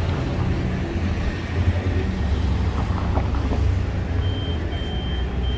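Steady low rumble of a motor vehicle on the move, with three short high beeps near the end.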